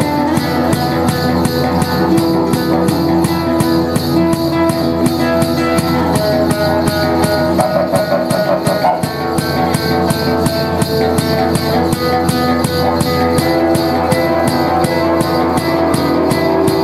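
Didgeridoo drone under a strummed acoustic guitar, with a steady percussive beat of about three strokes a second.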